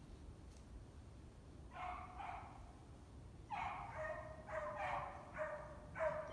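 Short barking calls from an animal out of sight: two about two seconds in, then a run of about five from the middle to the end, each under half a second.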